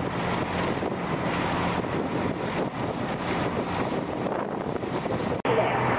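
Wind buffeting the microphone on the deck of a sightseeing cruise boat under way, over the steady drone of its engine and the rush of water along the hull. Near the end the sound cuts off abruptly and a different, lower steady engine hum takes over.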